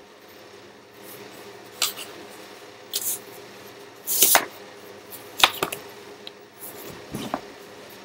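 Fabric rustling and being handled close to the microphone: about six short swishes and rubs, the loudest about halfway through, over a faint steady hum.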